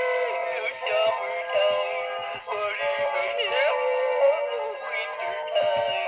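Battery-powered Gemmy animated hound dog toy singing a Christmas carol in a synthesized voice over backing music, played through its small built-in speaker.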